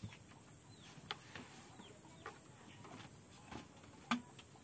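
Scattered short clucks of chickens and small bird chirps, the loudest a short sound about four seconds in.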